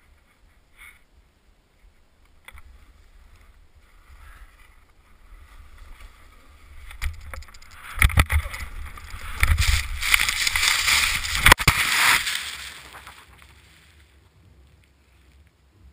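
Skier tumbling through deep powder, heard on a helmet camera: quiet skiing sounds at first, then from about six seconds in a rush of snow and wind over the camera that builds, with a rumble and several sharp knocks, loudest between about eight and thirteen seconds. It dies away as the camera is knocked off the head and comes to rest in the snow.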